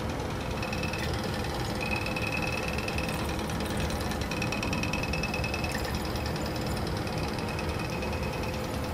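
Steady mechanical hum and rumble of running laboratory equipment, with a faint high whine that comes and goes.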